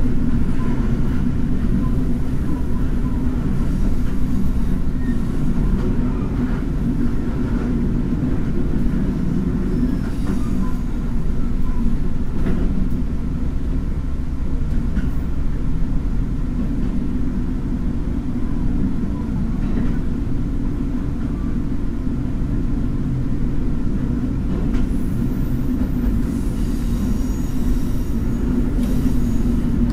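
Taiwan Railways DRC1000-series diesel railcar running steadily at about 37 km/h up a gentle grade, heard from inside the car: a loud, even diesel and running-gear rumble with wheel-on-rail noise and a few faint clicks.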